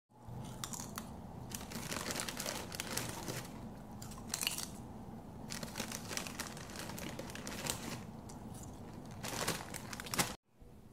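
Close-up crunching and crackling of food being bitten and chewed, dense and irregular, with crinkly sounds mixed in; it cuts off suddenly near the end.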